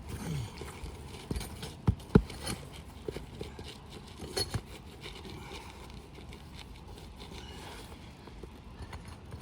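Hand tools knocking and scraping on roof shingles as nails are worked out of them, in irregular strikes; two sharp knocks about two seconds in are the loudest.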